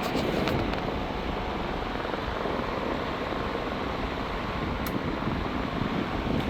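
Vintage 16-inch three-speed table fan running steadily on its low setting, a constant rush of moving air. The low speed is unusually fast, which the owner gives as the reason he doesn't use the fan.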